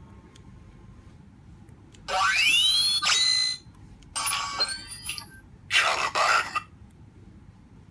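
Hitoren V3.0 lightsaber's soundboard playing short electronic sound effects as its sound fonts are cycled. The first, about two seconds in, has a rising sweep; a chirping one follows, then a noisy burst near six seconds.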